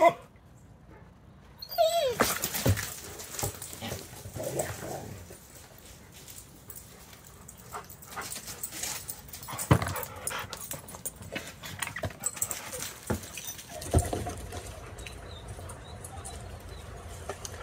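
Dogs playing: one dog gives a short whine that falls in pitch about two seconds in, with scuffling, scattered knocks and thumps, and a fainter drawn-out whine later on.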